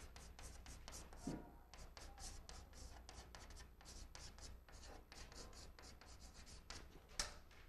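Chalk writing on a chalkboard: a quick, irregular run of faint scratching strokes and taps as characters are written.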